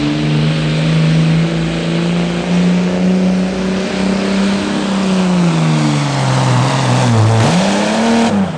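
Dodge Ram 3500's Cummins turbo-diesel inline-six pulling a sled at full load. The engine note holds steady and rises slightly, then drops in pitch from about five seconds in as the sled drags the truck down. Near the end comes a short rev up and back down.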